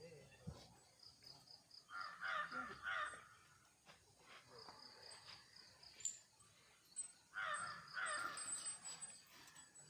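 Crows cawing in two bouts of several harsh caws each, about two seconds in and again near the end, over a faint steady high-pitched ticking.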